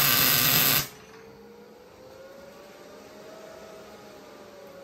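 A wire-feed (MIG) welder laying a short tack weld on a steel mounting bar: about a second of loud, steady arc crackle that cuts off sharply. After it a quieter steady hum remains, with a faint tone that slowly rises and then falls.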